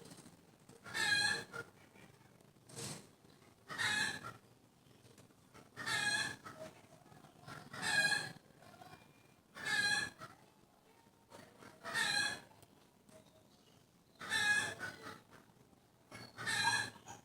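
An animal calling over and over: short, high-pitched cries with a clear tone, about one every two seconds.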